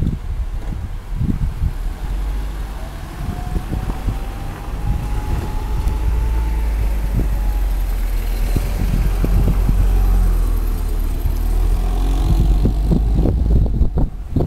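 Road traffic: cars driving past on a town street, over a heavy, uneven low rumble. One passing vehicle grows louder toward the middle, with a faint whine that rises and falls.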